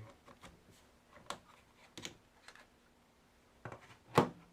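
Small plastic clicks and knocks as an Acer Aspire 5920 laptop's battery is unlatched and taken out, with one sharp, much louder knock near the end.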